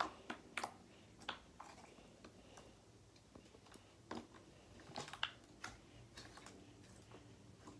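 Slime being pressed and stretched by hand, giving faint, irregular small clicks and pops.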